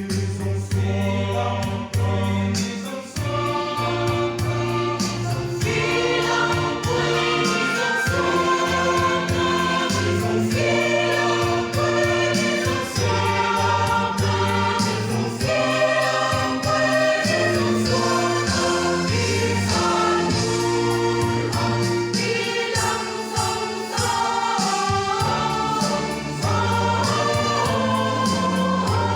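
Music: a choir singing a song with instrumental backing, a steady bass line and beat.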